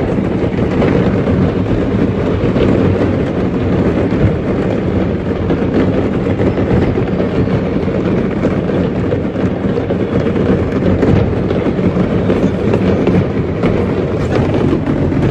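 Fireworks from a burning firework factory's stock going off in a continuous dense barrage of crackles and bangs, heard from inside a car.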